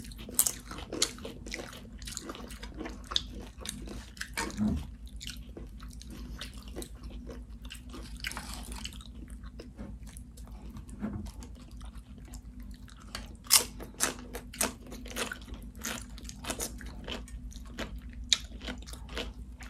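Close-up crunching and chewing of tortilla chips from loaded nachos by two people, in irregular sharp crunches that come thicker and louder in the last third. A steady low hum runs underneath.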